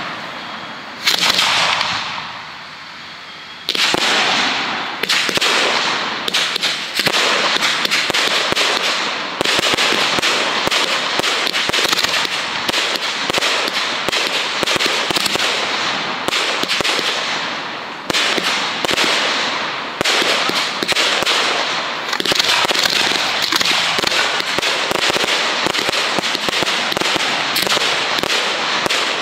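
Professional 1.3G display fireworks going off: two separate bursts in the first few seconds, then a dense, unbroken run of sharp bangs and crackling.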